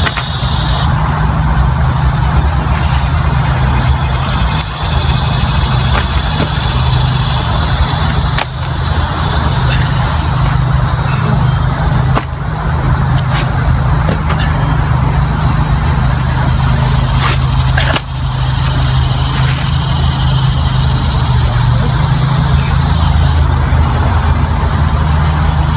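Steady low hum of a running machine, with a few faint clicks.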